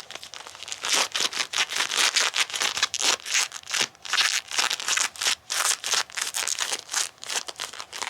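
Bilpearl rubber gloves rubbed briskly against each other: a fast run of rubbery swishing strokes, several a second, that stops abruptly near the end.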